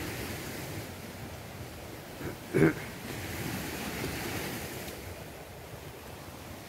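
Steady wind noise on the microphone, with soft scraping of a small hand tool digging soil around the roots of a tree stump. One sharp knock about two and a half seconds in.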